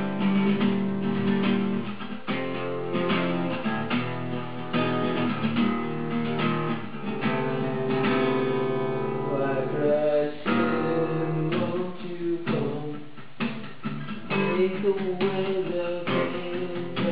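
Acoustic guitar music: strummed chords in a steady rhythm.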